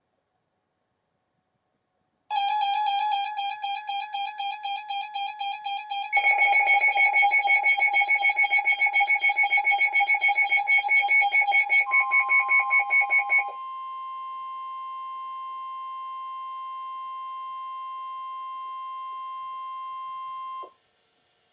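A weather alert radio's electronic alarm goes off about two seconds in: first a steady buzzing tone, then rapid beeping about four times a second from about six seconds in. Near twelve seconds the steady single-pitch NOAA Weather Radio warning alarm tone (1050 Hz) takes over and holds until it cuts off about twenty seconds in, signalling that a warning, here a flash flood warning, is about to be read.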